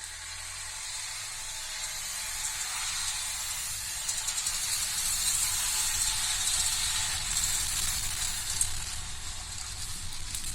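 Volvo XC90 accelerating, its tyre and road hiss swelling to a peak about halfway through and then easing. Over it runs a fast, fine ticking from the right front wheel, which the owner likens to a thin wire wound around something and catching the wheel spokes.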